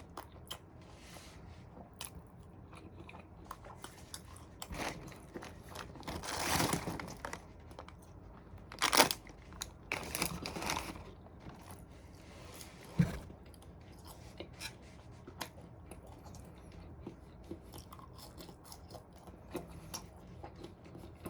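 Close-up chewing and biting of a chicken burger, with wet mouth clicks throughout and a few louder crunchy bites.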